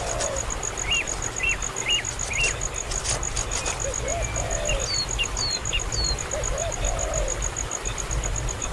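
Birds calling: a run of short chirps about twice a second, a few higher chirps later, and lower arching calls every few seconds, over a steady fast-pulsing high trill and a low rumble.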